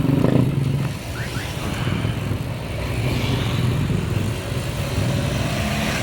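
Steady running sound of a vehicle on the road while riding, a low drone mixed with wind noise.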